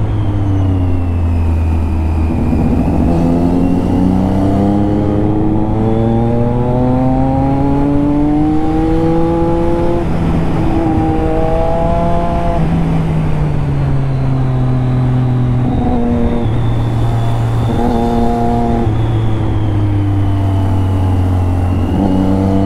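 Triumph Daytona 675's inline three-cylinder engine under way, its note climbing slowly through the revs for about ten seconds, then dropping and climbing again several times as it changes gear.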